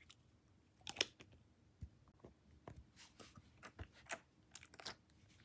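Slime being squeezed and pulled by hand, giving faint, irregular small squelches and pops, with a louder one about a second in and a quick run of them near the end.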